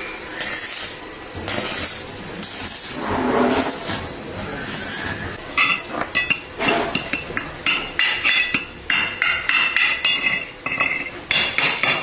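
Metal clinking and tapping: a few short rushing or scraping noises, then about halfway through a quick run of sharp, ringing metallic taps.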